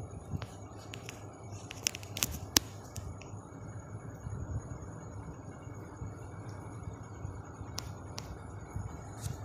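Electric fan running with a steady whir, and a few sharp clicks about two seconds in and again near the end.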